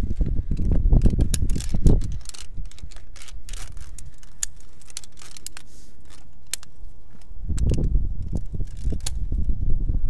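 Clicking and scraping of a via ferrata climber's gear and boots on rock and steel cable, with wind rumbling on the microphone for the first two seconds and again from about seven seconds in.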